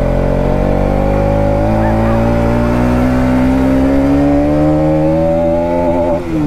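Motorcycle engine heard from the rider's seat, pulling under throttle, its pitch rising slowly and steadily, then dropping sharply about six seconds in as the revs fall.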